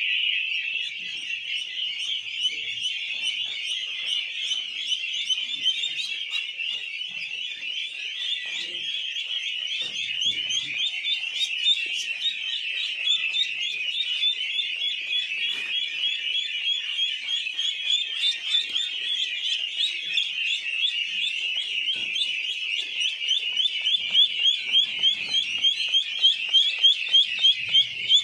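Many ducklings peeping at once, a dense high-pitched chorus of rapid overlapping chirps. In the last few seconds louder single peeps stand out, about two a second.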